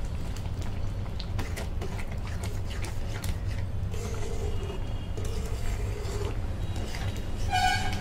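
Spatula stirring and scraping a thick, simmering milk-and-grated-bottle-gourd mixture in a steel pan, over a steady low hum. A brief high tone sounds near the end.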